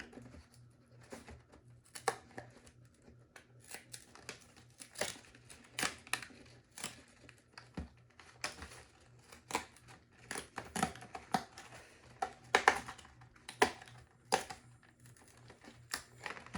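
Smoke alarm packaging being opened and its contents pulled out by hand: irregular rustling, scraping and crinkling with scattered clicks, busiest near the end.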